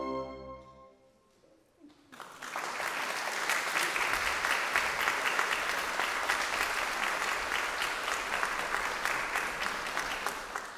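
The orchestra's last held chord fades away within the first second. After a brief hush, the audience starts applauding about two seconds in, a steady clapping of many hands.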